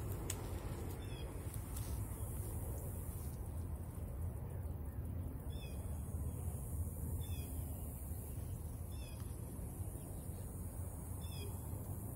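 A bird calling again and again in short runs of two to four quick, falling notes, over a steady low rumble of wind on the microphone.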